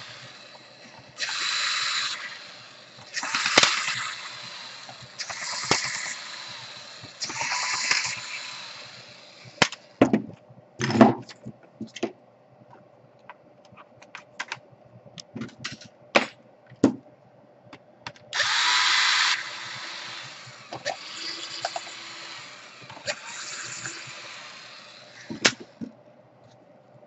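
Small electric screwdriver running in short bursts of a second or two, backing out the screws of a laptop's bottom case. Between the bursts come sharp clicks and knocks as screws and the plastic case are handled.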